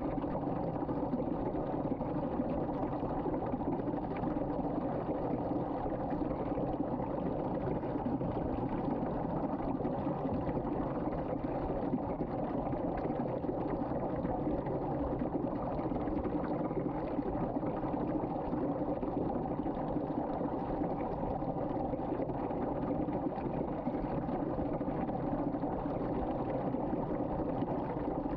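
Water spinning in a whirlpool and draining down a sink drain, a steady, even water noise.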